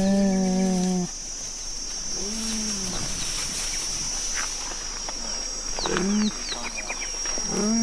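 Big-cat calls built from cheetah and cougar recordings as the voice of an extinct American cheetah. They come as drawn-out, steady-pitched calls: one ends about a second in, a shorter one follows near two and a half seconds, another brief one near six seconds, and a long call starts near the end. A faint steady high tone runs underneath.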